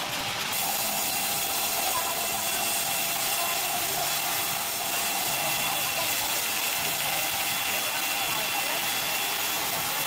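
Horizontal band sawmill cutting lengthwise through a squared timber: a steady hiss of the band blade in the wood with an even high-pitched tone running through it.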